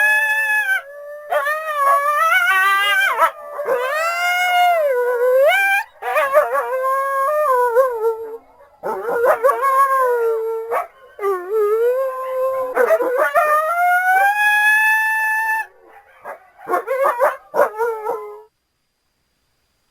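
Coyote howls: a series of long wavering calls, each sliding up and down in pitch, with short gaps between them, then a few quick yips near the end before the sound cuts off.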